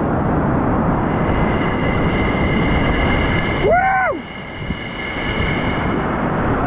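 Whitewater of the upper Ötztaler Ache rushing loudly around the kayak. About four seconds in comes a brief voice call that rises and falls in pitch.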